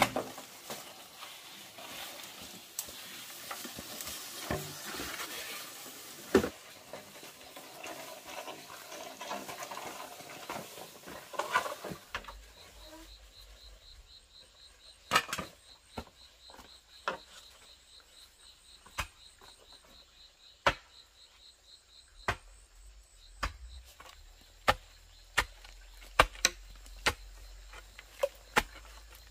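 A rustling hiss for the first dozen seconds, then sharp, irregular knocks about every second, loud and clear against a quiet background. Through the middle an insect trills in a fast pulsing rhythm.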